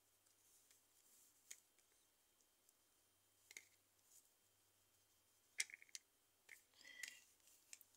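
Near silence broken by a few faint, sharp clicks and taps as fingers roll small pieces of modelling clay and set them down on a work board, the loudest cluster coming a little past halfway.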